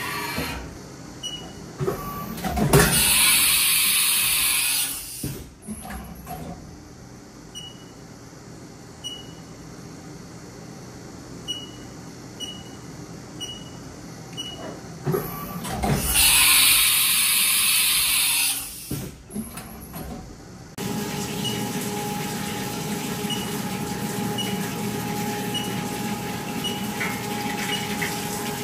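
1999 Haas VF-2 vertical machining center running through its motions: two loud hissing bursts of about two seconds each, with quieter machine sounds between. About two-thirds of the way in, the coolant pump starts and coolant sprays from the programmable nozzle with a steady hum and rush that keeps on to the end.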